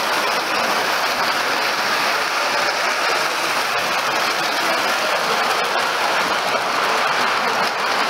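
Vintage O gauge model train, a green 4472 steam-outline locomotive hauling coaches, running along the track with a steady running noise.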